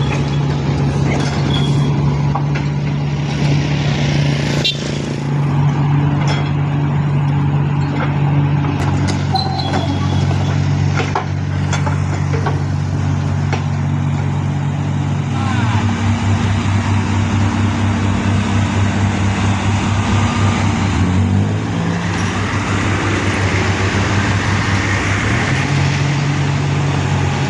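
Heavy vehicle's diesel engine running steadily. It drops to a lower speed about halfway through and speeds up again near the end, with scattered clicks and knocks in the first half.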